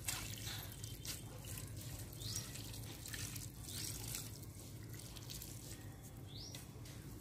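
Water poured onto garden plants and soil, splashing and trickling, with a few short rising bird chirps.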